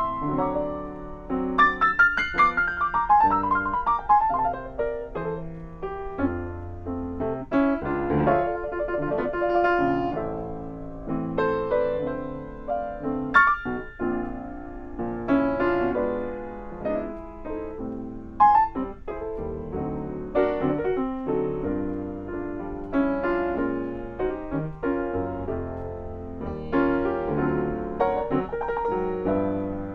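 A grand piano played solo: a continuous flow of melody over chords, with a quick rippling figure in the upper notes a few seconds in.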